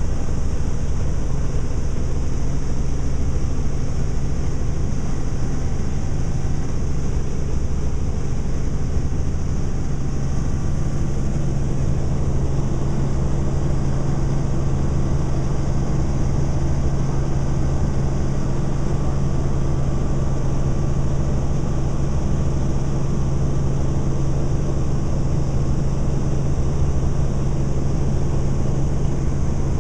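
A helicopter's engine and rotor running steadily in flight, heard from inside the cabin: a loud, constant drone with a steady low hum that does not change.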